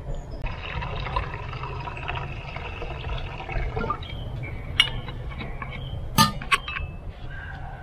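Water poured from a steel vacuum flask into a metal cup on a hobo stove for about three seconds, then three sharp metal clinks of cups and pots being handled.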